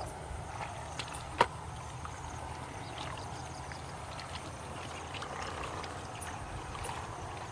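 Hands sloshing and splashing in shallow muddy water while groping for fish, over a steady low rumble, with one sharp click about a second and a half in.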